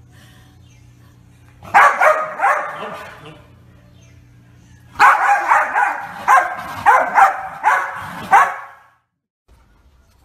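Corgi barking for a treat held above it: three barks about two seconds in, then a quicker run of about nine barks a few seconds later.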